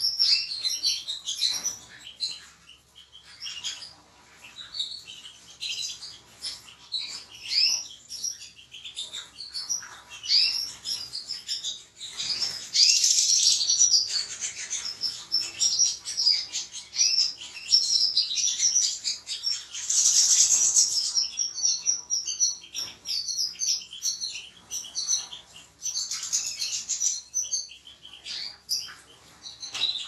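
European goldfinches singing, a busy, continuous twittering of quick high chirps and trills from several birds, with louder stretches a little before halfway and about two-thirds through.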